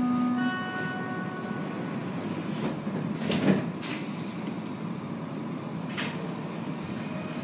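Montreal Metro train standing at a station: the last note of the door-closing chime fades at the start, then the sliding doors shut with a thud about three and a half seconds in, over a steady hum. A short hiss comes near six seconds in.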